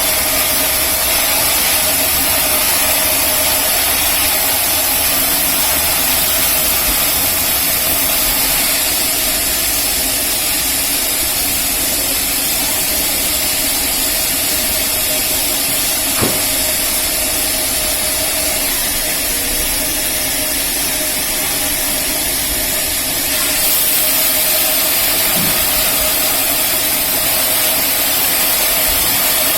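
Rail-mounted band sawmill running steadily: a constant machine hum under a strong hiss, with a single sharp click about halfway through and the hiss growing slightly louder near the end.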